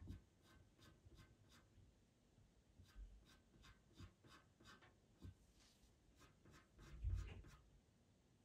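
Pastel pencil scratching on Pastelmat paper in short, light strokes, about three a second. About seven seconds in there is a dull low thump, louder than the strokes.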